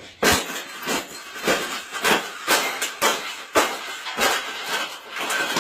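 Wire birdcage being bent and folded flat, its metal bars clanking and rattling in about ten sharp strikes, roughly two a second, with a scraping rattle between them.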